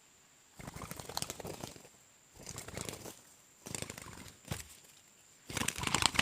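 Rustling and crackling in four bursts of about a second each, the last one the loudest.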